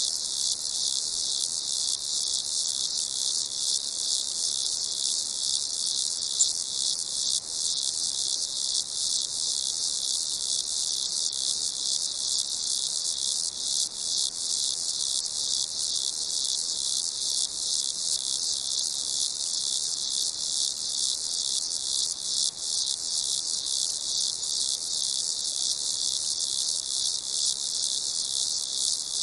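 Crickets chirping in a continuous high-pitched chorus, steady throughout with a fine rapid pulsing.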